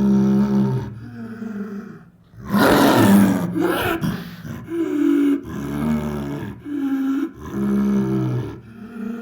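A series of lion roar and growl sound effects: a pitched growl, a short gap, then a loud, harsh roar about two and a half seconds in, followed by several shorter growls with brief pauses between them.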